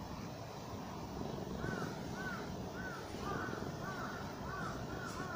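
Tabby cat purring steadily while its head is stroked. From about one and a half seconds in, a bird calls in a quick series of short, arched notes, about two a second.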